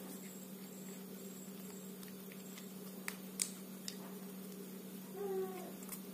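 Plastic toy-truck parts clicking a few times as they are unscrewed and pulled apart, over a steady electrical hum. Near the end comes a short pitched squeak.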